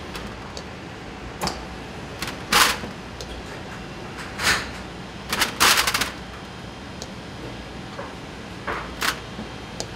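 Steady hum of factory machinery with irregular sharp metallic clatters and knocks. The loudest is a short run of clatters a little past the middle.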